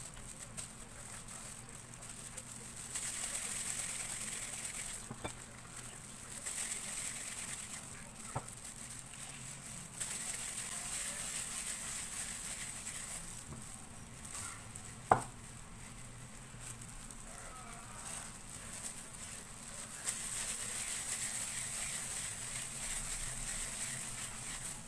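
Thin plastic food-prep gloves crinkling and rustling in stretches as gloved hands knead and roll a sticky graham-crumb mixture in a bowl. There are a few light clicks, and a sharp knock about fifteen seconds in.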